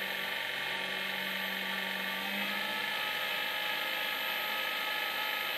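Excelsior 10x18 mini wood lathe running empty on its newly fitted electronic variable-speed motor during a first test run: a steady electric motor whine with a low hum underneath.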